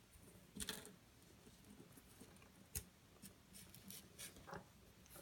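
Faint, scattered scratches, scuffs and small clicks of three-week-old kittens moving about as they play, with one louder scratchy scuffle about half a second in.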